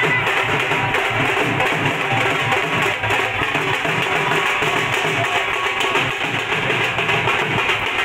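Loud, continuous procession music: hand-played dhol drums beating a steady rhythm, with a plucked string instrument also playing.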